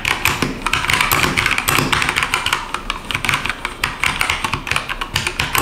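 Fast typing on a Keychron K2 V2 wireless mechanical keyboard with brown Gateron tactile switches: a dense, steady run of keystroke clacks.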